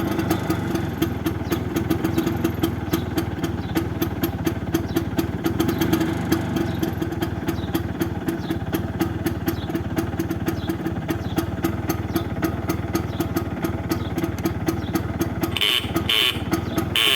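1977 Bajaj 150 scooter's single-cylinder two-stroke engine running steadily with an even, fast pulse. Near the end three short high-pitched bursts sound over it.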